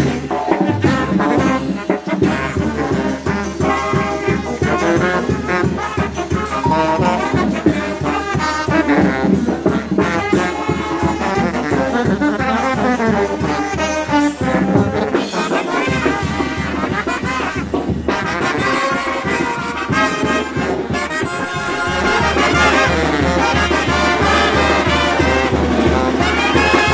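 Mexican brass banda playing a lively tune with a steady beat: trumpets, trombones and clarinets over sousaphone bass, with cymbals and drums. The band gets somewhat louder near the end.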